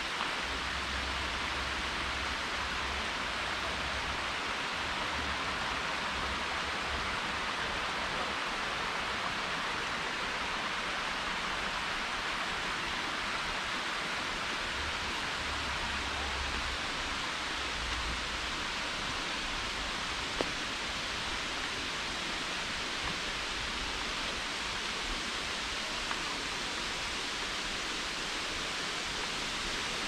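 Steady rushing of Sherman Falls, a curtain waterfall, and Ancaster Creek, heard as an even hiss of falling water. A low rumble comes and goes underneath.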